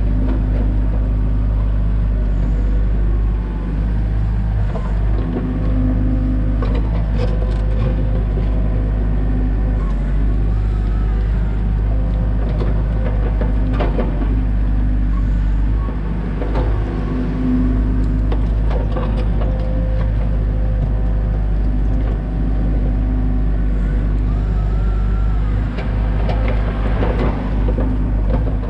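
Komatsu excavator's diesel engine running steadily under load, its pitch shifting now and then as the hydraulics work. The bucket knocks and scrapes on rocky fill several times while backfilling the trench.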